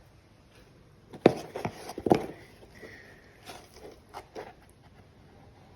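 Knocks and clicks of a ketchup bottle and a baking soda container being handled as baking soda is poured into the bottle. Two sharp knocks come about a second and two seconds in, then a few lighter taps.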